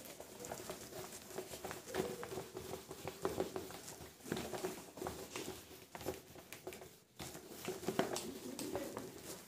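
Whiteboard duster rubbed over the board, wiping off marker writing: an irregular scrubbing and scratching with small knocks. It breaks off briefly about seven seconds in.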